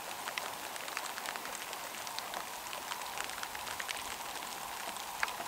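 Faint light rain: a steady soft hiss with many scattered ticks of single drops.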